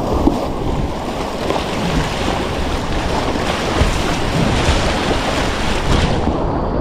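River whitewater rushing in a steady, loud noise, mixed with wind buffeting the microphone.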